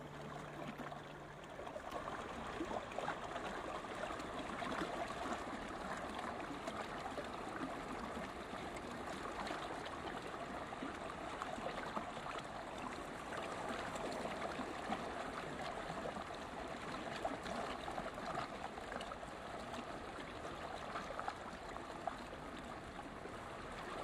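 Shallow creek water running steadily, with a fine splashing, gurgling texture.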